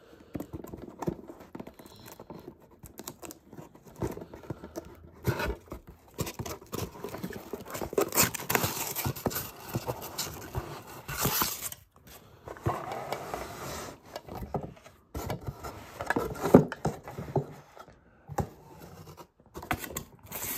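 Cardboard box being opened and handled: flaps and panels scraping and rustling, with irregular knocks as wooden toy pieces are slid out and set down, the sharpest knock about three-quarters of the way through.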